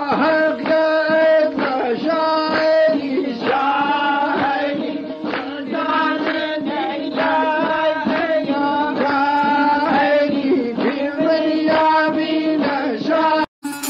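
Music: a voice chanting over a steady held drone. It breaks off abruptly near the end.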